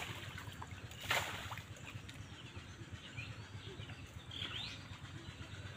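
A single splash of shallow muddy water about a second in, from people catching fish by hand in a drained pond, over quiet outdoor background.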